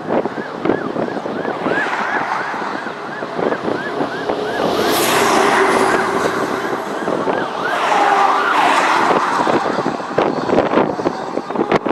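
Emergency vehicle siren in a fast yelp, rising and falling about three times a second. A rushing noise swells under it twice, around five and eight seconds in.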